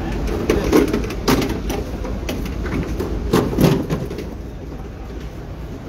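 Market hall background: a steady low rumble with several sharp knocks and clatters in the first few seconds, then quieter.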